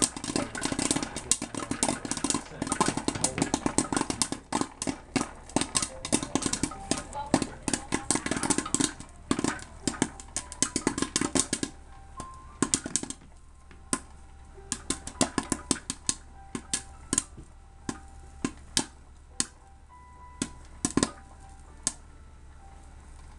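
Popcorn popping in an electric popcorn popper under its orange dome lid, over a steady motor hum. The pops come thick and fast for about the first half, then thin out to scattered single pops as the batch nears done.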